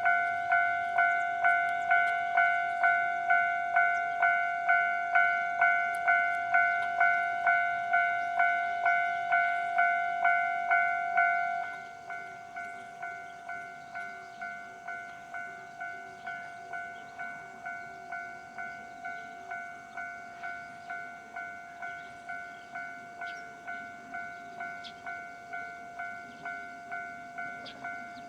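Japanese railway level-crossing warning bell ringing in a steady rhythm of about two strokes a second. About twelve seconds in it drops to a noticeably quieter level and keeps ringing at the same rate.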